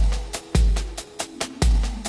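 Electronic background music with a heavy kick drum, ticking hi-hats and a bass line.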